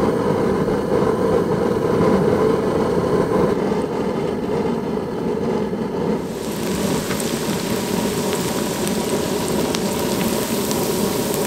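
Gas burner under an outdoor fryer pot running with a steady low rush of flame. About six seconds in, the bright hiss and crackle of tater tots deep-frying in hot oil joins it.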